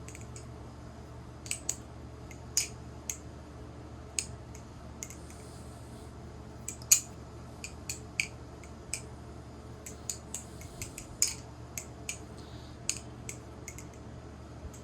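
Balisong (butterfly knife) being flipped: irregular sharp metallic clicks as the handles swing and strike, over a steady low hum.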